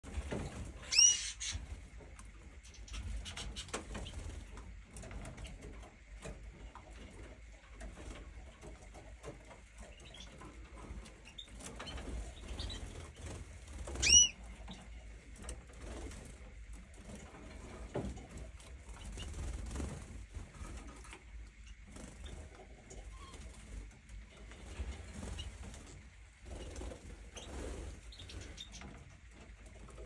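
Domestic canaries flitting about, with wing flutters and small taps and scuffs among the perches and feeders. Two loud, short call notes ring out, about a second in and again about fourteen seconds in, with a few faint chirps between.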